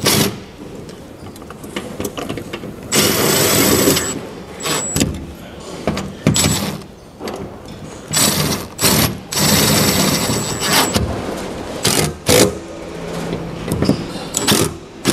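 Cordless drill spinning mirror-base bolts into a car door in a series of short bursts, stopping and starting several times, with a thin motor whine in the longer runs.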